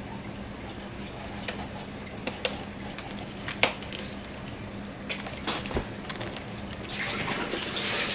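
Hard plastic snap-on case being pressed onto a MacBook Air lid, giving a handful of light clicks and taps rather than a clear snap. Near the end comes a longer stretch of plastic rubbing and scraping as the shell is worked into place.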